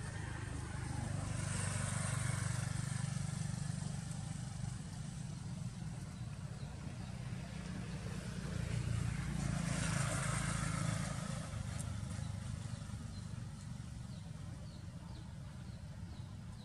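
Engine noise of passing motor vehicles: a low hum that swells and fades twice, about a second in and again around nine seconds. A run of faint high chirps comes near the end.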